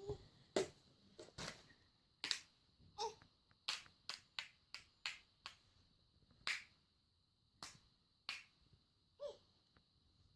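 A baby making mouth clicks and smacks: a string of about fifteen sharp clicks at an uneven pace, with two brief little squeaks in his voice, about three seconds in and near the end.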